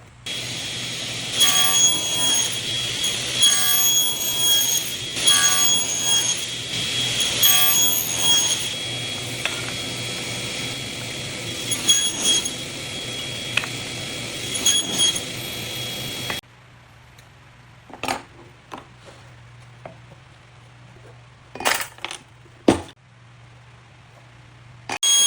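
A woodworking power tool running with a low hum, its high whine rising and falling in short repeated strokes as it works, then cutting off suddenly after about sixteen seconds. A few sharp knocks and clicks follow.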